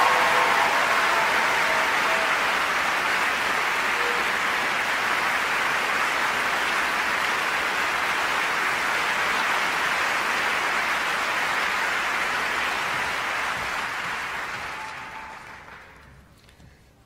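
Large audience applauding steadily, the applause dying away over the last few seconds.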